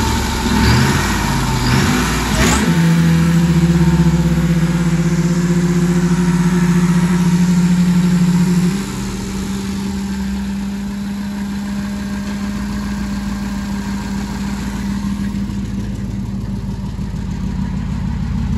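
Supercharged 5.4 L V8 of a 2000 Ford F-150 SVT Lightning running: briefly revved at the start, then held steady. About nine seconds in, the sound steps down and runs on steadily and a little quieter.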